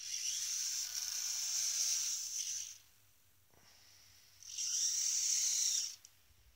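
Hobby servos of a robot arm whining high-pitched as the arm swings, in two bursts: one about three seconds long, then after a pause a second, shorter one about four and a half seconds in.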